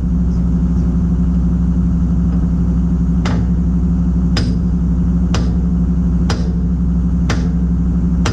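Kobelco SK250 LC excavator's diesel engine idling steadily while a hammer strikes metal about once a second, six blows from about three seconds in, driving the bucket pin home through its shims.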